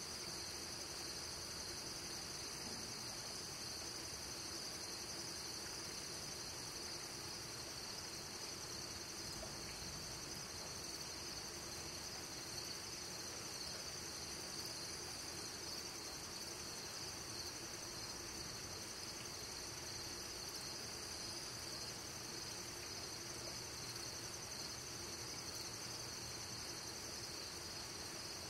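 A night chorus of crickets and other insects: steady, high-pitched trilling that runs on without a break.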